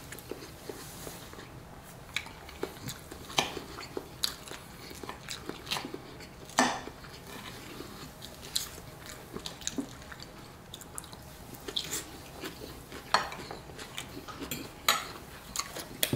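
Fork and knife clinking and scraping against a plate, in irregular sharp clicks, with chewing of a mouthful in between.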